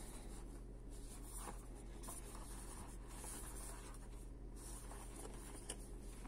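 Cardboard box rubbing and scraping against the hands as it is turned over, coming and going in soft patches, with a small click near the end, over a steady low electrical hum.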